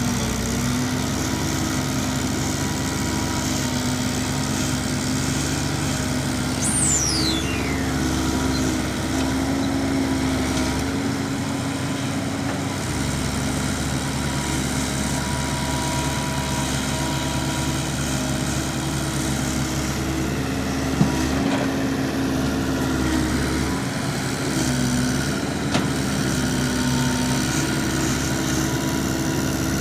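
Hino dump truck's diesel engine running steadily under load as the truck climbs a steep pit ramp in second gear. A brief high falling whistle comes about seven seconds in.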